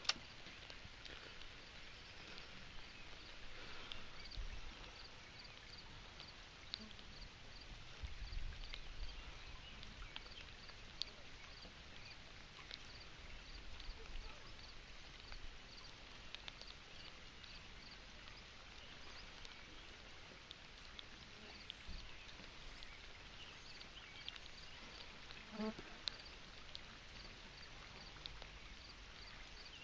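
An insect chirping steadily, short high chirps repeating a few times a second, over a faint steady hiss. Low wind rumbles on the microphone come and go around 4 and 8 seconds in.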